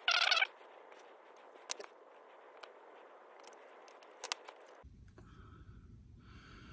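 Butane jet lighter flaring with a brief loud hiss at the start, then faint clicks from the lighter and the plastic body being handled.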